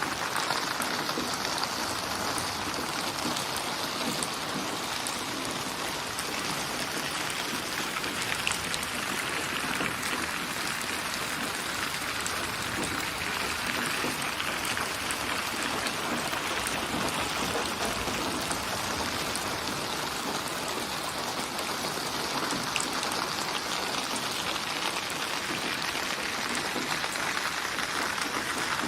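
Steady rainfall, a dense even hiss of rain with many small drops pattering on a surface.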